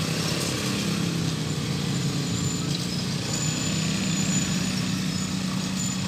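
Several small motor scooters riding over a railway level crossing one after another, their engines running with a steady hum. A thin high whine is heard briefly about halfway through.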